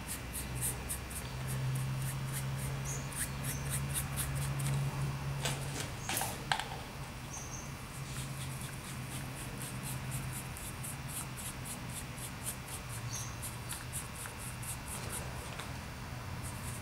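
Paintbrush scrubbing black paint onto a model-railway river-bed base: quick scratchy strokes, several a second, with short breaks, over a steady low hum. A single sharp tap about six seconds in.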